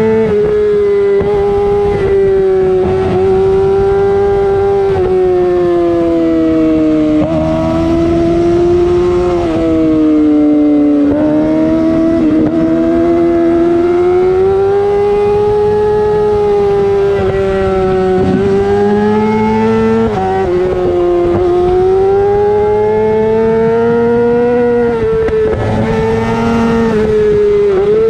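Yamaha YZF-R6's 600 cc inline-four running at high revs through a LeoVince full-system exhaust. The engine note rises and falls steadily, with several brief sharp dips in pitch at gear changes.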